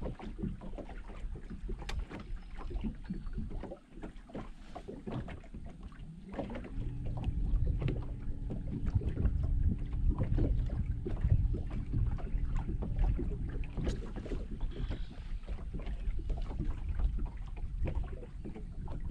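Wind buffeting the microphone and small waves slapping against a bass boat's hull. About six seconds in, a steady low hum joins them and runs for several seconds.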